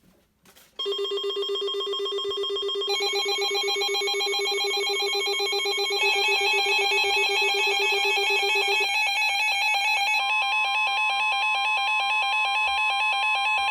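Weather radio alert alarm sounding: a loud, pulsing electronic warble of several tones that starts about a second in and shifts its pattern a few times. It signals an incoming severe thunderstorm warning.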